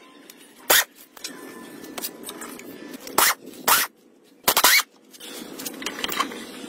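Short, sharp bursts of metal tool work on the rusty tractor gearbox: a hand-held driver with a socket extension on its bolts and tools scraping the metal. Four bursts come at uneven gaps, and the longest, near the end, rises in pitch.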